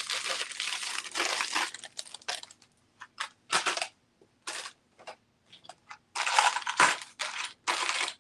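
Rustling and crinkling of small plastic jewelry bags as the pieces are rummaged through and handled, in irregular bursts that thin out in the middle and grow louder again near the end.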